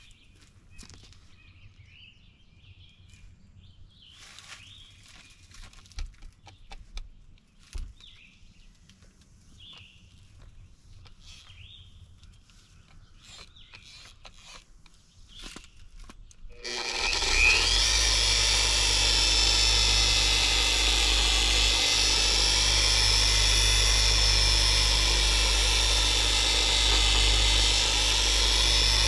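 Harbor Freight dual-action polisher switched on about halfway through, spinning up and then running steadily with a whine that wavers slightly in pitch as it is worked over fiberglass siding. Before it starts there are only faint chirps and clicks.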